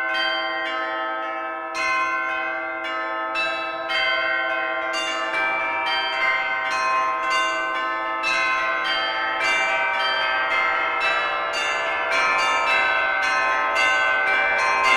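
Church bells ringing a loud, overlapping peal, the strikes coming thicker and faster from about five seconds in. The peal accompanies the blessing with the raised monstrance.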